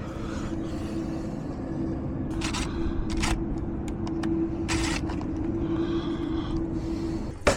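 A steady mechanical hum with a low rumble underneath, cutting off near the end, with a few short scrapes and clicks over it.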